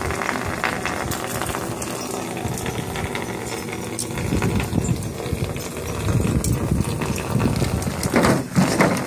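A small dog splashing and moving through shallow water in a plastic kiddie pool.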